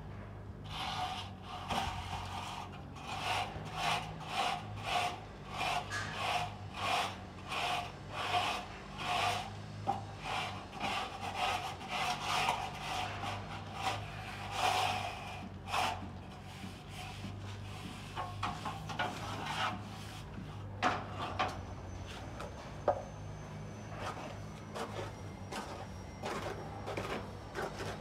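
A plasterer's float rubbing over cement render on a wall in regular scraping strokes, about one a second, for the first half. After that come fainter, scattered scrapes and a couple of sharp knocks.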